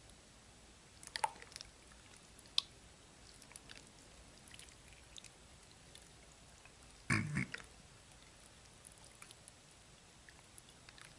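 Faint sticky squelches and small clicks of clear-glue-and-borax slime being stretched up out of a bowl by hand, with one louder wet plop about seven seconds in.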